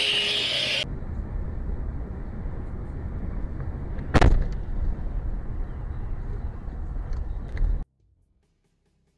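Car driving with a steady low road-and-engine rumble, broken about four seconds in by one sharp bang, a crash impact. The sound cuts off suddenly near the end.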